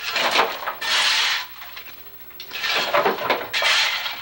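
A shovel scraping up broken brick and mortar rubble and dumping it into a metal wheelbarrow: four gritty scraping and rattling strokes of about half a second each.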